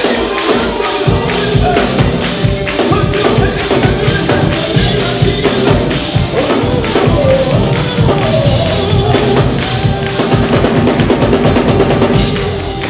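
Upbeat gospel music with a drum kit and tambourine keeping a steady beat and voices singing over it.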